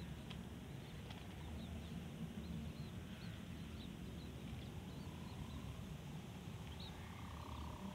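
Open-field ambience: a steady low rumble with small birds chirping, short high chirps every second or so.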